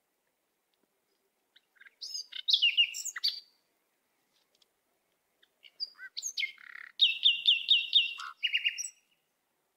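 Small songbird chirping: a few high chirps about two seconds in, then more calls from about six seconds, with a quick run of repeated notes, about five a second, near the end.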